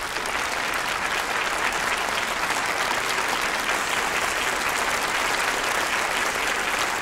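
A large audience applauding, many hands clapping at once. The applause swells in at the start and then holds steady.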